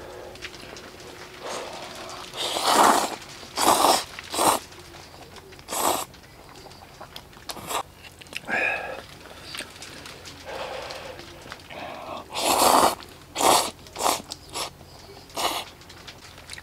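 A person slurping and chewing instant black-bean noodles: several loud, short slurps in two clusters, with wet chewing between them.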